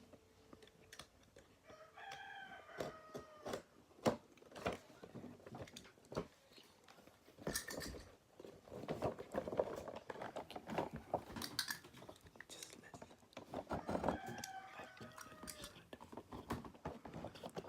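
Faint clicks and rustling as a toy figure's packaging is handled and opened. Twice, about two seconds in and again about fourteen seconds in, a drawn-out pitched call sounds that slides slightly down.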